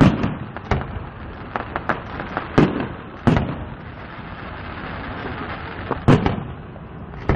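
Fireworks display: a series of loud bangs from bursting shells, at the start, at about 2.6 and 3.3 seconds, and near the end, with smaller cracks in between. Several bangs trail off in a low rumble.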